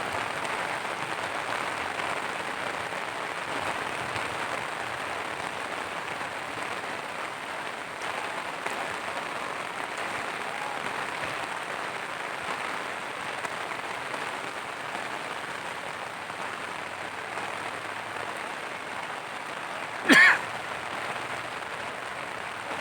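Steady rain falling, an even hiss with no breaks. About twenty seconds in, one sudden, short, loud knock.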